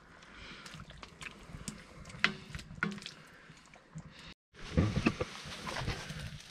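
A wooden spatula stirring a thick stew in a cast iron pot, with soft scrapes and light clicks. After an abrupt cut about four seconds in, a crusty loaf of bread is torn apart by hand, its crust crackling, the loudest sound here.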